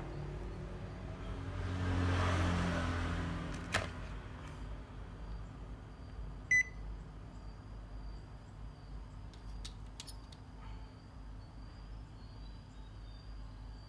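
A Panasonic inverter air conditioner's indoor control-board buzzer gives one short electronic beep about halfway through, acknowledging a command from the remote. Before it there is a low steady hum, a brief rustle and a click.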